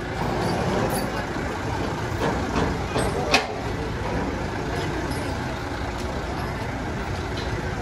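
Lorry engine running at idle, a steady low rumble, with one sharp clank a little over three seconds in.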